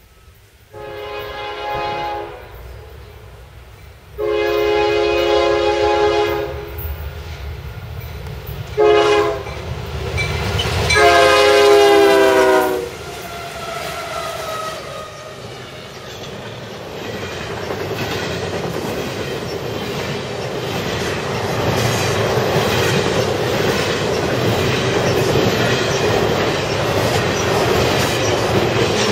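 Nathan K-5HL five-chime air horn on a CSX GE ES44DC diesel locomotive sounding the grade-crossing signal: two long blasts, a short one and a long one, the last dropping in pitch as the locomotive passes. After it, the diesel locomotives and the double-stack intermodal cars roll by with a building rumble and clickety-clack of wheels on rail joints.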